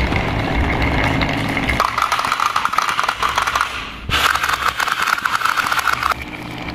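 Plastic balls rolling and clattering down a wooden marble-run track with wavy channels: a fast run of clicks and knocks, with a steady rolling whirr through the middle.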